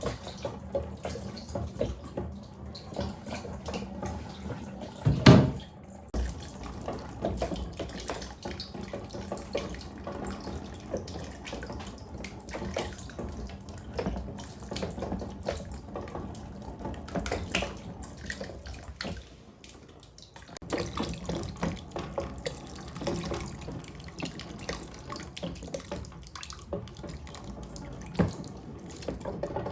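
Water running down a wooden marble-run slider, with marbles rolling and clicking along the channel. One loud knock about five seconds in, and the flow briefly drops off just before twenty seconds.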